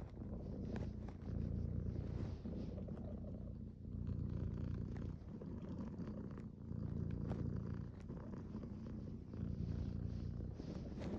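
Domestic cat purring close up: a steady low rumble that swells and eases with each breath, every two to three seconds.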